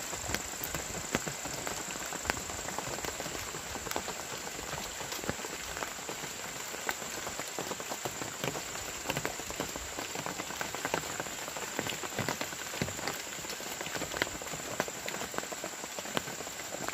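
Rain pattering on forest foliage: an even hiss dotted with many scattered drop taps.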